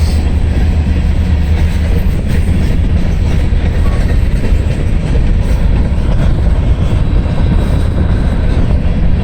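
Freight train rolling past at close range, a steady rumble of railcars on the rails, with wind buffeting the microphone.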